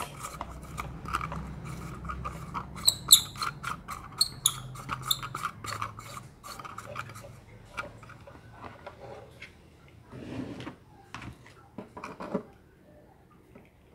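An LED bulb's screw base being twisted into a plastic lamp socket: a run of clicks and short high squeaks of plastic and metal rubbing. Near the end, rustling as an electrical cord is handled.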